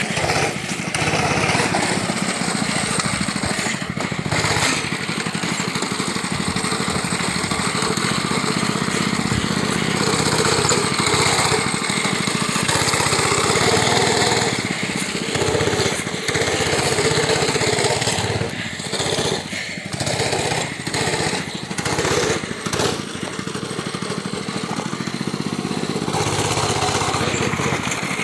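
Small gas engine of an off-road go-kart running as the kart is driven over dirt.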